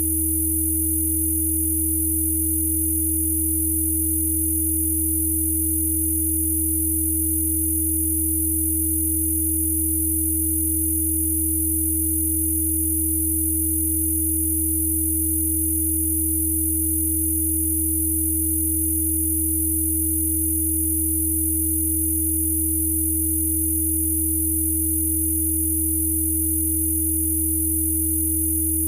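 Steady synthesized Rife frequency tones held without any change: a deep hum, a clear mid-pitched tone above it, and thin very high tones.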